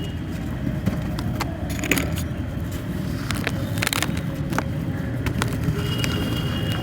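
Dry glittery crumbling texture being crushed and broken apart, giving scattered sharp crackles and snaps over a steady low rumble.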